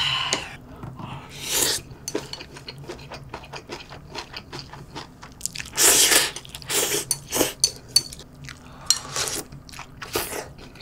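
Close-miked slurping and chewing of Shin Ramyun instant noodles, with several loud slurps, the strongest about six seconds in, and small clicks of metal chopsticks against a glass bowl between them.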